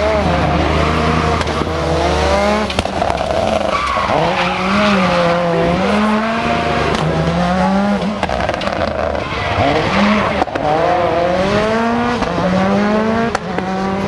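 Peugeot 206 WRC rally car's turbocharged four-cylinder engine being driven hard, its revs climbing and dropping back again and again every second or two.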